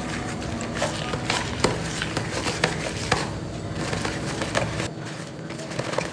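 A pencil stirring thick, sticky glue slime in a plastic bowl: irregular scraping and clicking as it knocks and drags against the bowl.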